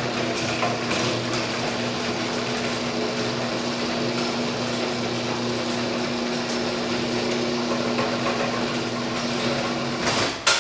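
Garage door opener motor running steadily with an even mechanical hum as it drives the door, then cutting off with a clunk near the end as the door reaches its stop.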